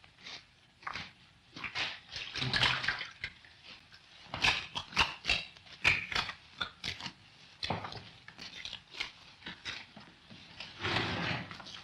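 Hands kneading a large mass of bread dough in a wooden trough: irregular wet slaps, squelches and pushes of the dough.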